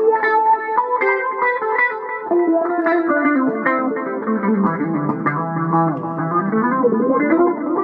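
Electric guitar played with a clean tone: picked notes and chords, with a line that walks down to low notes around the middle and climbs back up near the end.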